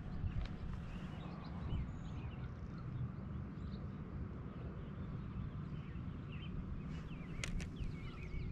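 Wind rumbling on the microphone, with small birds chirping now and then in the background and a couple of sharp clicks near the end.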